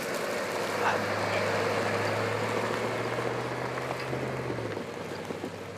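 A vehicle engine running with a low steady hum that stops about five seconds in, over a steady hiss of blizzard wind and snow.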